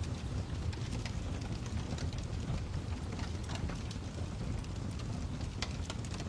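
Crackling fire: a steady low rumble with irregular sharp pops and snaps, a few every second.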